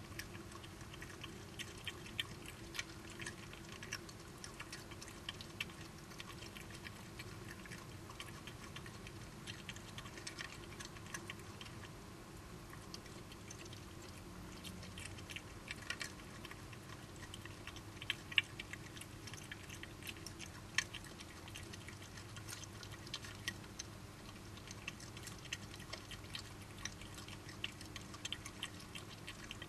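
Badgers chewing and crunching food: faint, irregular little clicks, several a second, over a steady low hum.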